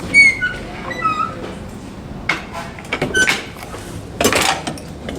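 Fire doors swinging on cam-action door closers: short high-pitched squeaks in the first second and a half, then several knocks and clunks of the door hardware and a rushing noise about four seconds in, ending in a loud sudden bang.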